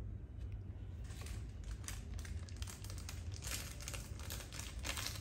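Wrapping crinkling and rustling as it is handled, starting about a second in as an irregular stream of crackles.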